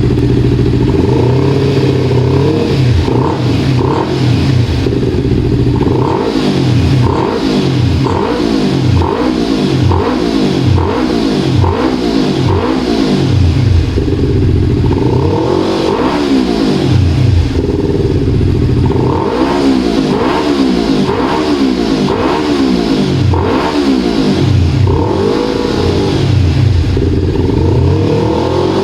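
Yamaha R25's parallel-twin engine through a Comm Pro aftermarket exhaust with a 63 mm inlet: it idles for a moment, then is revved in quick throttle blips, about one a second, each rising and falling in pitch.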